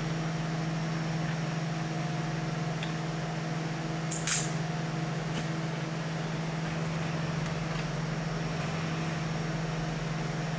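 A steady low machine hum, with a short hiss about four seconds in.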